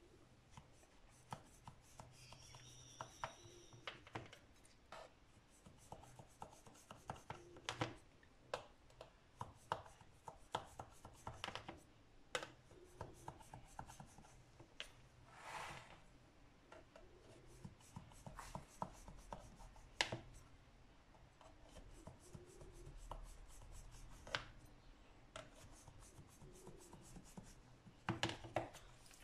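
A knife scoring a tray of gur papdi into pieces: faint scraping as the blade draws through the soft, still-warm sweet, with irregular clicks and taps as it knocks the metal tray.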